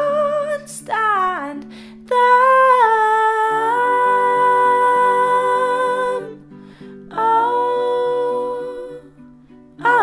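Female voice singing long wordless held notes over softly plucked strings, in a slow, gentle song. There is a short sliding phrase, then two long sustained notes, the first held for about four seconds.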